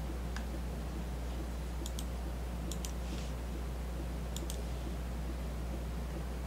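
Computer mouse clicking a few times, several of them as quick pairs of press-and-release ticks, over a steady low electrical hum.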